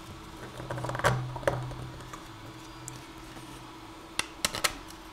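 Hard plastic parts handled: a 3D-printed reflector rubbed and pressed into its printed spotlight housing as a friction fit. There is a cluster of rubbing and light clicks about a second in, and a few sharp clicks near the end.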